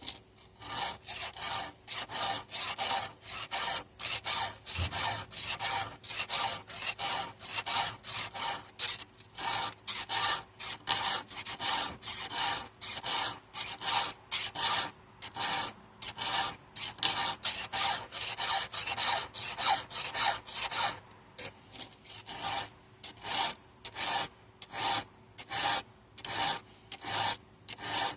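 Hand file rasping across the cutters of a chainsaw chain during sharpening, in quick even strokes about two to three a second, with a brief pause about three-quarters of the way through.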